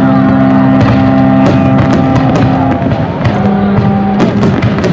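Music with long held notes plays over a fireworks display, with the sharp bangs and crackles of shells bursting overhead.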